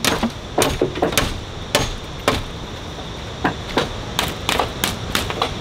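A tool striking wood in a run of sharp, irregular knocks, about a dozen in all, with a pause of about a second midway.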